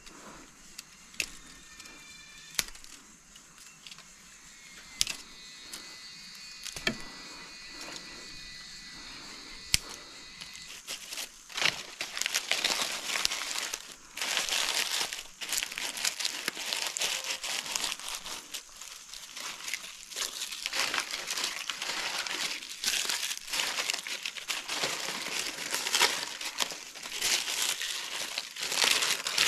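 Dry leaves being crumpled and torn by hand, a dense crackling rustle that starts about a third of the way in and runs on; before that, a few sharp snaps and clicks of dry twigs being handled.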